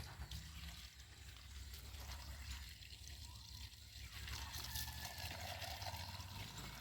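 Borewell drilling rig's engine running with a faint, steady low hum, with water trickling.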